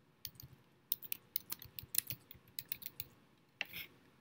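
Light, irregular clicking of keys being typed on a computer keyboard, some in quick runs, with a short scratchy sound near the end.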